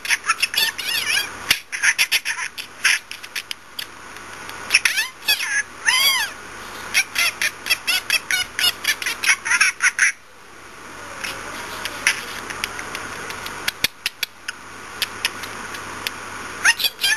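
Pet budgerigars chattering: rapid chirps, clicks and short warbles, with a lull of a few seconds past the middle before the chatter resumes.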